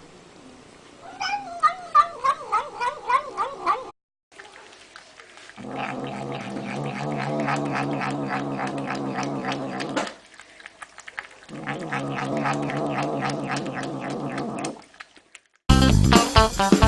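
Cat meowing: a quick run of short, wavering calls in the first few seconds, then two long, drawn-out lower yowls. Guitar music cuts in near the end.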